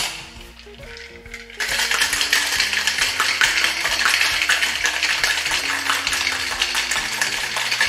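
Ice rattling hard and steadily inside a Boston shaker (a metal tin over a mixing glass) holding gin, lemon juice, jam and bitters, after a knock at the start as the tin is fitted onto the glass. The shaking begins about a second and a half in.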